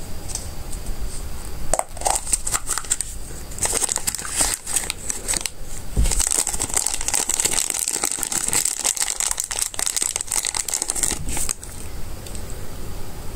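Thin plastic bag crinkling, mixed with clicks of hard plastic, as a capsule toy is opened and its small toy-train parts are handled and unwrapped. It starts about two seconds in and stops shortly before the end.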